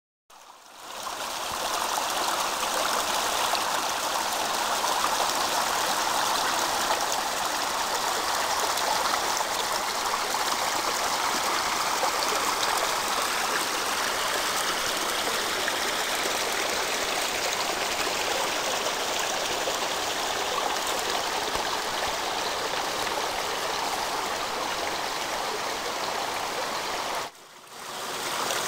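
Small rocky creek flowing and trickling over stones, a steady even rush of water. It fades in at the start and drops out briefly near the end before resuming.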